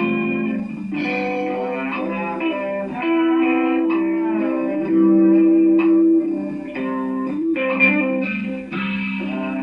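Instrumental rock music from a band, with electric guitar and long held melody notes that change every second or so, including a few short pitch slides.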